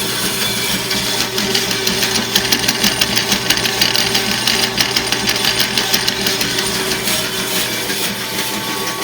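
Electric meat bandsaw running on its first test run after assembly: a steady motor hum, with a fast rattling clatter through the middle of the run that eases off near the end.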